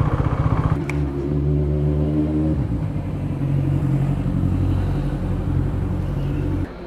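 Motorcycle engine running under way. After a break about a second in, the engine idles steadily and cuts off near the end.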